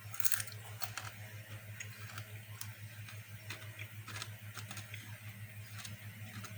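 Chewing hard, crunchy pork scratchings: irregular crisp crunches, a few each second.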